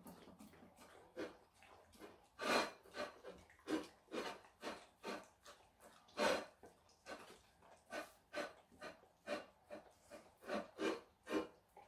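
Siberian husky and malamute puppy eating carrot pieces from plates and licking them clean: an irregular run of short chewing and licking sounds, about two a second.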